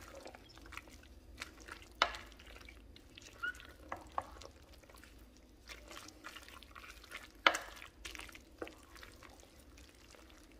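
Wooden spoon stirring a thick, creamy casserole of shredded chicken and corn tortilla pieces in a slow cooker crock: soft, quiet sticky mixing sounds broken by a few sharper knocks, the loudest about two seconds in and again past seven seconds.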